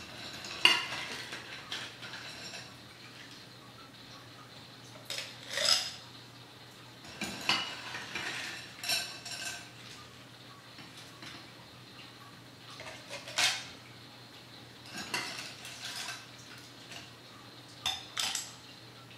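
Metal scoop digging into a bowl of ice cubes and tipping ice into tall glasses: scattered clinks and rattles of ice against metal and glass, a second or more apart, the sharpest about half a second in.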